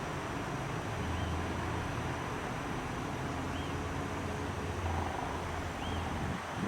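Wind rushing over the microphone with a low hum underneath, and a faint short high chirp repeating about every two seconds.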